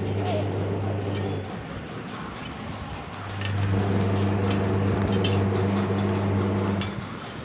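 Light clinks and scrapes of a metal spoon in a steel bowl as a baby pokes at his food. A few sharp clinks sit over a steady low hum, which drops out for about two seconds early on and fades near the end.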